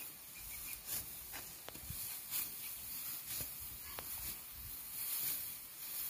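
Ripe rice stalks rustling as they are gathered and cut by hand with a sickle: repeated crisp swishes about a second apart, with a couple of sharp snaps.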